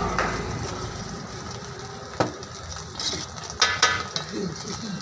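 A few sharp metal clinks of utensils against the street-stall griddle: one about two seconds in, then two or three close together near four seconds, over a low background bustle.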